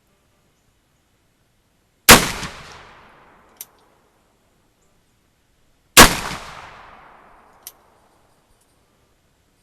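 Cabela's Buffalo percussion revolver firing two black-powder shots about four seconds apart, each report fading out over about a second. A short sharp click follows each shot.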